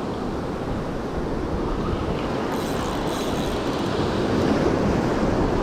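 Steady rumbling wind noise on the microphone mixed with the wash of breaking surf on an open beach.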